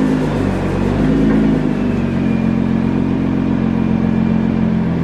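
Car engine running, its pitch lifting and dropping briefly twice in the first two seconds, then settling to a steady idle.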